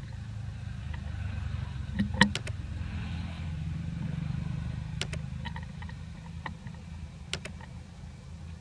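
Low, steady rumble of road traffic, with a few sharp, scattered clicks over it.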